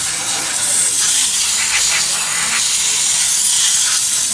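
Compressed-air solvent spray gun hissing steadily as it blasts cleaner onto an automatic transmission's exposed valve body to wash off metal particles.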